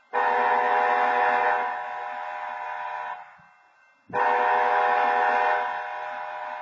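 BNSF diesel locomotive horn sounding two long blasts for the grade crossing, each a chord of several steady tones lasting about three seconds; the second starts about four seconds in, and each drops in loudness about halfway through.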